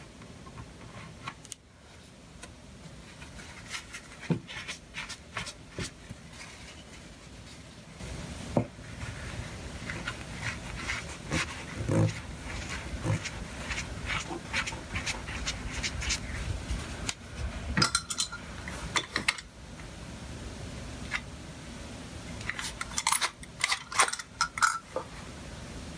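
Scattered light clicks and taps with soft rubbing, the handling sounds of a finger tooling a bead of painter's caulk into a joint, with a quick flurry of sharper clicks near the end.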